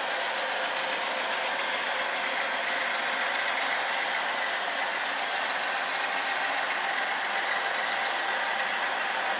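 HO-scale crude oil tank cars rolling along model railroad track: a steady, even rattle of many small wheels running over the rails.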